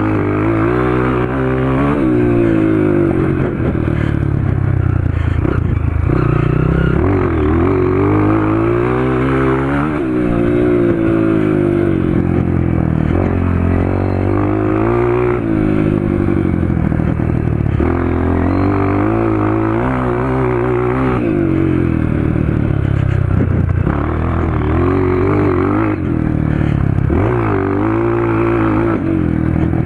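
Honda CRF230 single-cylinder four-stroke dirt bike with a Powercore 2 exhaust, ridden hard: the engine revs climb and fall again and again as the rider accelerates, shifts and backs off, with a short dip in the engine note every five or six seconds.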